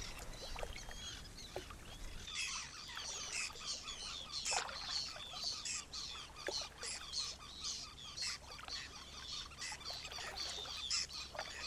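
A flock of waterbirds calling: many short, high chirps and cries overlapping in a steady chorus that starts about two seconds in.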